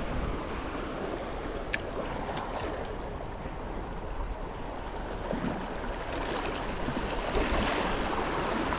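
Small waves washing against jetty rocks, a steady surf wash, with wind on the microphone.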